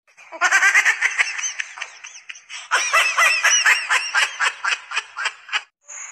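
A baby giggling: two long runs of quick, high-pitched laughs, the second starting a little under three seconds in.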